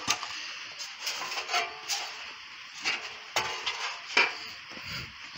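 Sheet-metal car-body panels, a new sill reinforcement and a rusted-out old one, knocking and clanking as they are handled and shifted on the ground. The sharp knocks come at irregular intervals, and the loudest is a little past four seconds in.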